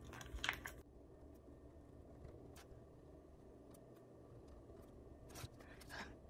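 Near silence with a few faint rustles and light taps: planner stickers being peeled from their sheet and pressed onto paper pages.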